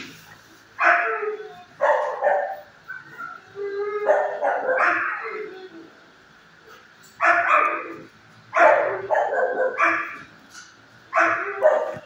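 Dogs barking in a shelter kennel block, in repeated bursts of a few barks every second or two.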